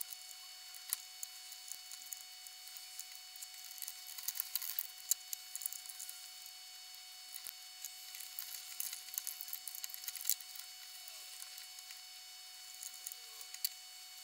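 Scattered small clicks, taps and rustles of hands working wires and the plastic switch-handle housing of a Metabo KGS 254 M chop saw, pressing the cover shut, over a faint steady tone.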